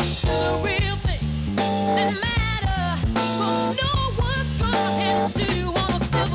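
Background rock music with guitar and drums and a bending, wavering melody line.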